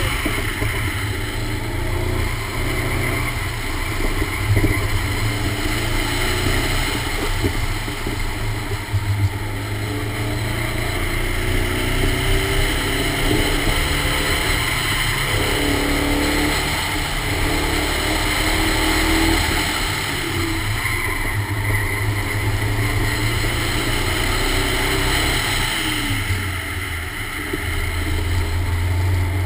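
1986 Toyota Corolla GTS (AE86) with a 1.8-litre 7A-GE stroker four-cylinder engine running hard, revs rising and falling through an autocross run, over a steady hiss of wind and road noise.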